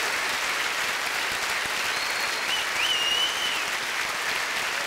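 Audience applauding steadily. A brief high-pitched call rises out of the clapping about halfway through.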